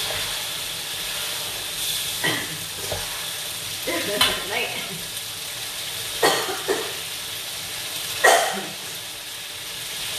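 Chilli sambal sizzling and frying in oil in a pan, stirred with a spatula that scrapes the pan in several strokes about two seconds apart.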